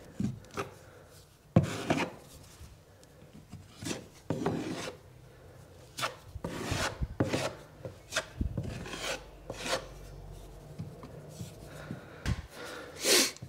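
Metal filling knife scraping and pressing wet filler into a patched hole in a wall, in irregular short strokes, with a louder stroke near the end.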